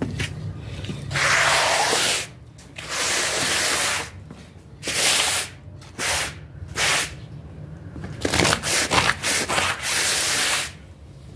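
A series of hissing rubbing strokes across a wet floor, each about half a second to a second long, with a quicker choppy run of strokes near the end.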